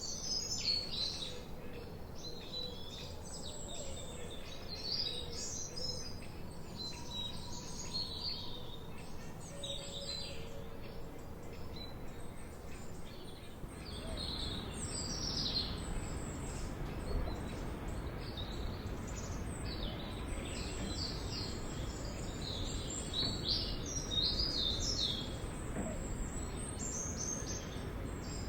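Several songbirds chirping and singing, many short high calls overlapping throughout, over a steady low background rumble that grows a little louder about halfway through.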